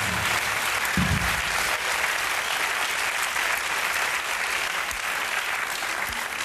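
Studio audience applauding steadily, dying away near the end.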